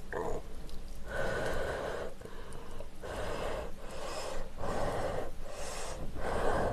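A person blowing on a lifted bundle of hot ramen noodles to cool them: several breathy puffs, each about a second long, with short pauses between.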